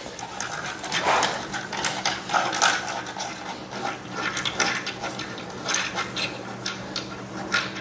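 Hands rummaging among table hardware and packaging: irregular light clicks, knocks and rustles.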